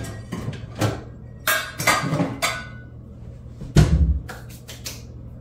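Rummaging in a lower kitchen cabinet: a run of knocks and clatters as kitchenware is moved about, with a heavy thump a little under four seconds in.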